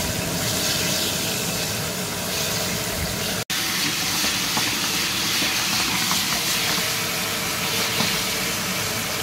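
Flour-dusted minced-beef meatballs sizzling steadily as they fry in hot sunflower oil in a frying pan. The sound drops out for an instant about three and a half seconds in.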